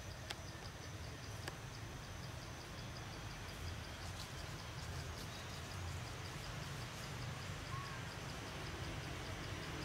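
Outdoor ambience: an insect chirping in high, evenly spaced pulses over a low steady rumble, with a couple of faint clicks in the first two seconds.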